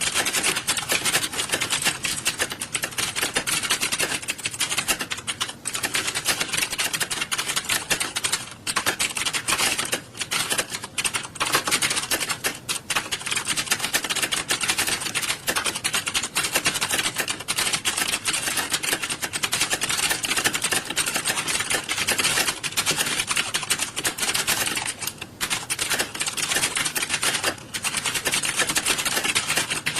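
Many computer keyboards clattering at once, a dense, continuous rush of fast key clicks as a room full of people type.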